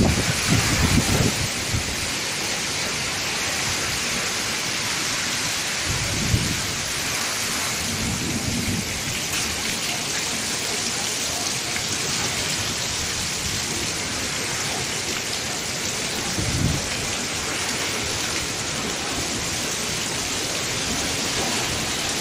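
Heavy rain and strong wind of a nor'wester thunderstorm, a steady loud hiss, with a few low rumbles about a second, six, eight and seventeen seconds in.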